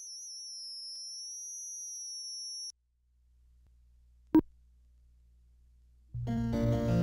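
A steady high-pitched tone with a fainter, higher tone above it sounds over a film-leader countdown and stops after about three seconds. After a faint low hum, a single short beep, the sync pop of the countdown, sounds a little past halfway. Music with keyboard starts near the end.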